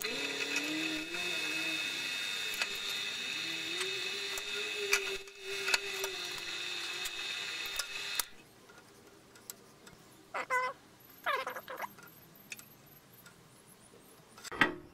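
Pedestal drill press running and drilling deeper into a cast inlet manifold. The motor's steady whine carries a lower tone that wavers as the bit is fed in. The machine stops abruptly about eight seconds in, and a few light clicks follow.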